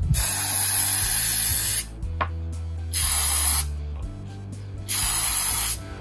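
Aerosol spray can spraying in three hissing bursts: a long one of nearly two seconds, then two shorter ones.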